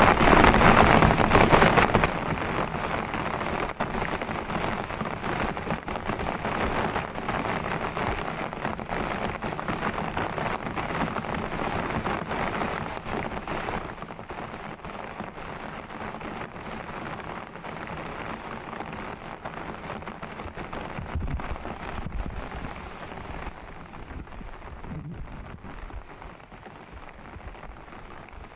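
Heavy rain falling steadily, loudest for the first two seconds, then dropping off sharply and easing gradually as it goes on. A brief low rumble comes about twenty-one seconds in.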